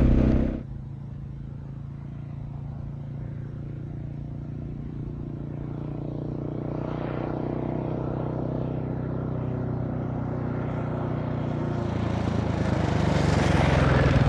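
Loud close-up engine and wind noise cuts off about half a second in. Then the distant single-cylinder engine of a Husqvarna 701 LR dual-sport motorcycle is heard approaching at speed on a dirt road, its steady note growing gradually louder. Near the end it passes close by with a rush of tyre and gravel noise.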